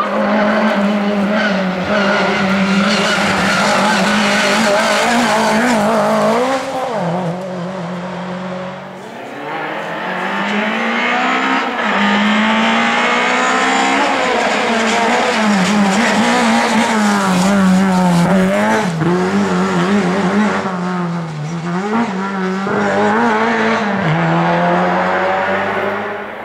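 Rally car engine being driven hard, its pitch repeatedly rising and falling with throttle and gear changes. The sound is loud for the first few seconds, eases off for a few seconds, then comes back loud for most of the rest.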